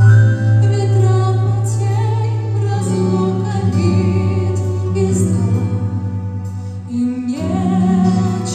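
A woman singing a slow, gentle song over instrumental backing with held bass notes.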